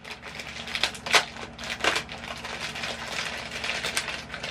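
Packaging being handled and opened: irregular crinkling and rustling with a few sharp clicks and snaps.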